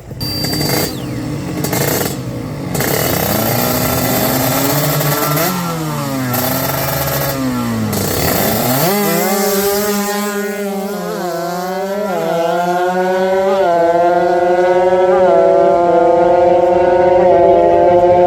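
Drag-racing motorcycle engines revving hard, then accelerating through the gears. The pitch climbs and snaps back at each of several upshifts, and the sound grows louder toward the end.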